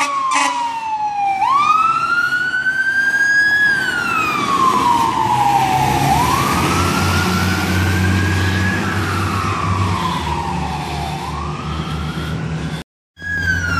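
Fire engine siren on a slow wail, its pitch rising and falling about every five seconds over the truck's low engine rumble as it drives past. The sound cuts out abruptly near the end, and then a siren resumes on a falling note.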